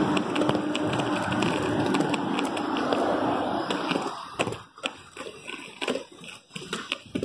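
Roller skate wheels rolling over a concrete sidewalk: a loud steady rumble that fades about four seconds in, leaving irregular scrapes and clicks from the wheels and strides.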